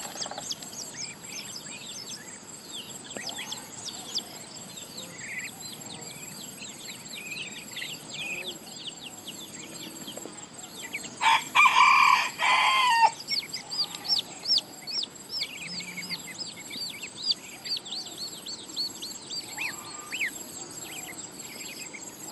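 A rooster crows once, about eleven seconds in, lasting under two seconds, over steady chirping of small birds.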